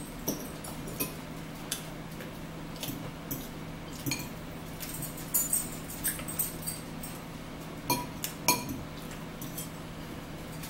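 A fork and spoon clinking and scraping against bowls and plates while eating, scattered short clinks at an irregular pace, over a faint steady low hum.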